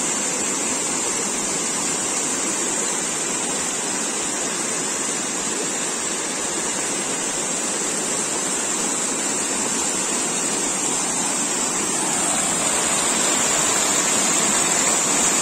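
Stream water rushing in a steady cascade over a mesh net set across the current, growing a little louder near the end.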